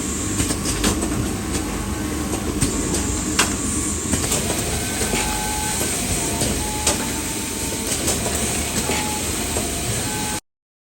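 Garment factory machinery running, a steady dense clatter with many sharp clicks and a few short pitched beeps, cutting off suddenly near the end.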